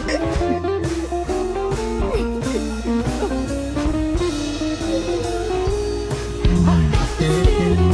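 Background music: a blues-style guitar tune with bass and drum kit.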